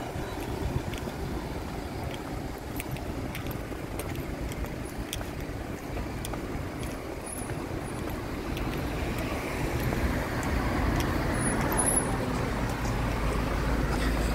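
Road traffic: cars driving past on a city street, a steady rush of engines and tyres that grows louder over the last few seconds.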